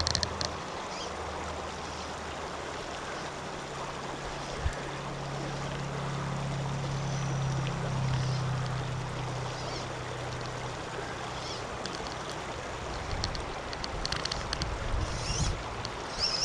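Shallow mountain creek running over a cobble and gravel bed, a steady wash of water. A low hum swells and fades through the middle, and a few light ticks come near the end.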